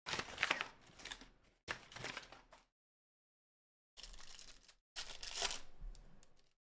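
Packaging being torn and crinkled in four noisy bursts, two in the first three seconds and two more from about four seconds in.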